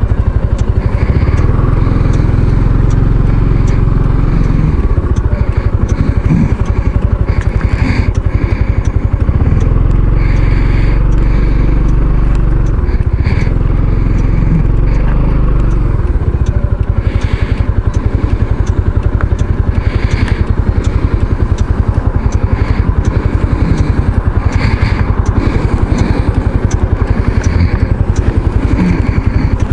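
Kymco Xciting 500 maxi-scooter's single-cylinder engine running while ridden. A heavy low rumble is strong for the first half and eases about halfway through.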